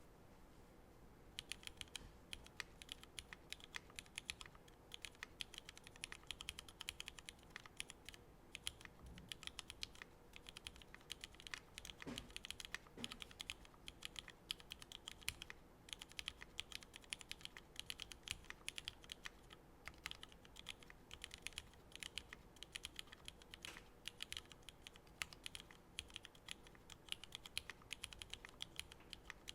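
Typing on a Keycult No.1/65 mechanical keyboard with pre-retooled Cherry MX Black linear switches, an aluminium plate and GMK keycaps: a dense, continuous run of keystroke clacks that starts about a second and a half in.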